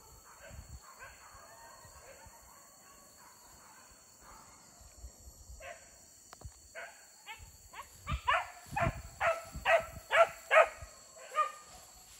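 Hunting dog barking in the brush: faint, scattered barks at first, then a run of about eight loud barks a little over two a second, starting about two-thirds of the way in.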